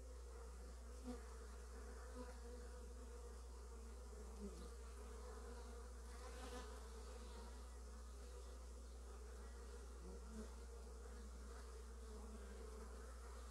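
Honey bees buzzing at a hive entrance: a steady, quiet hum of many wings. Now and then a single bee passes close, a brief louder buzz that rises or falls slightly in pitch.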